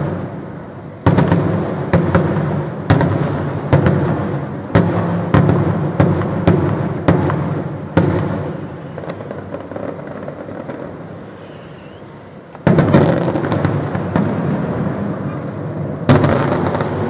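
Aerial firework shells bursting in quick succession, about one sharp bang a second for the first eight seconds, each trailing off in an echo. After a short lull, a louder salvo about thirteen seconds in turns into a dense, sustained rush of noise, and another burst with crackling comes near the end.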